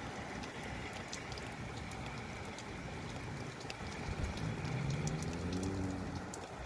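Steady rain shower hiss with scattered sharp drip ticks. About four seconds in, a low hum swells for around two seconds, then fades.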